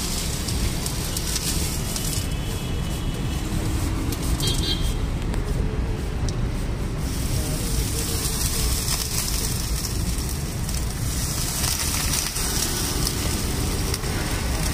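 Roadside street ambience: a steady wash of traffic noise with faint voices in the background.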